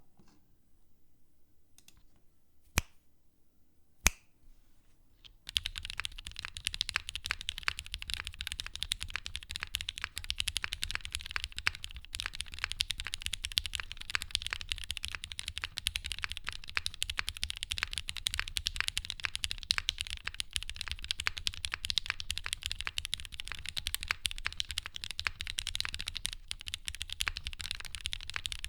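Typing on a mechanical keyboard with lubed, filmed vintage Cherry MX Black linear switches in an aluminium half plate, under GMK keycaps. A few single clicks in the first seconds, two of them sharp and loud, then fast continuous typing from about five seconds in.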